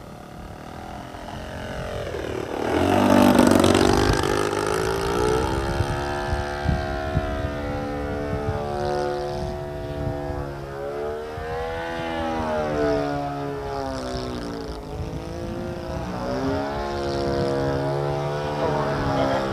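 Propeller and motor of a small RC aerobatic plane in flight. It is loudest a few seconds in, as it passes closest. Through the rest, its pitch keeps rising and falling as the throttle changes during 3D manoeuvres.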